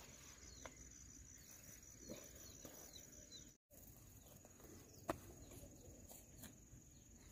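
Quiet rural background with a steady high-pitched insect trill, pulsing for the first few seconds, and a few faint clicks. The sound cuts out completely for an instant about halfway through.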